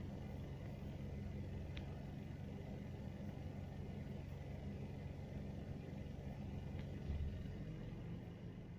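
Vehicle engine running steadily with a low hum, and a low bump about seven seconds in.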